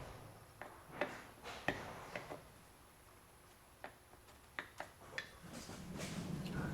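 Scattered light clicks and taps of small metal parts and tools being handled while a steering-column ignition switch is taken apart. A steadier handling noise builds near the end.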